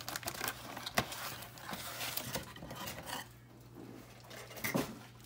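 Cardboard trading-card box and its foil packs being handled: a run of light knocks and rustles, with a sharper knock about a second in. The handling grows quieter after about three seconds, and one more knock comes near the end.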